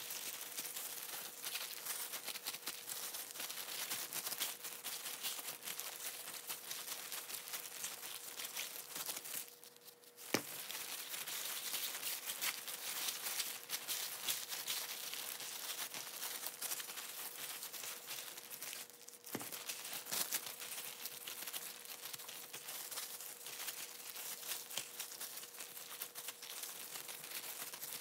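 Thin disposable plastic gloves crinkling steadily as gloved hands handle and cut raw chicken pieces. The crinkling breaks off briefly twice, with a single sharp tap after the first break, over a faint steady hum.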